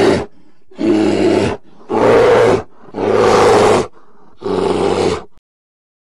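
Bear roaring: the end of one roar, then four short roars about a second apart, stopping shortly before the end.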